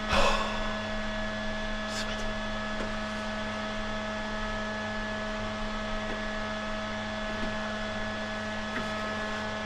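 Steady hum of running shipboard machinery in a confined plant space: a constant drone made of several fixed tones. A brief scrape or clatter comes right at the start, and a light click about two seconds in.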